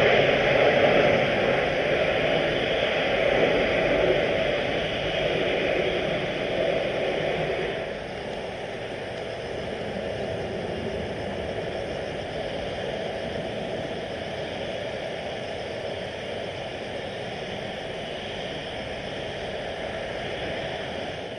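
Boeing 787-9 jet engine noise after a go-around, a steady rush that is louder for the first eight seconds or so, then drops to a lower, even level.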